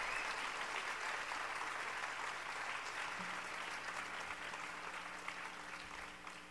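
Concert audience applauding, a dense steady clapping that slowly fades out.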